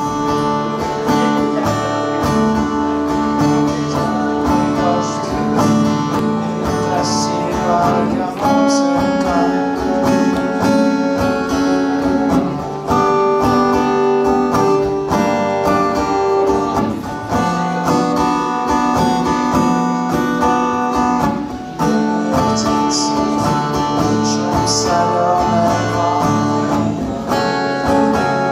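Acoustic guitar played solo: picked chords in a steady, flowing pattern, the chord changing every second or two.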